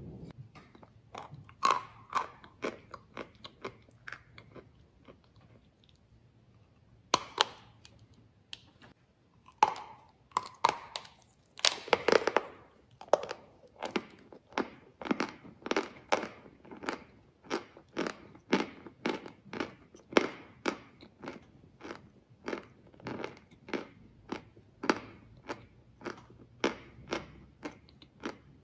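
Chalk crunching in a long series of sharp, crisp crunches. They are irregular at first, with a brief lull about five seconds in, then settle into a steady rhythm of about two a second.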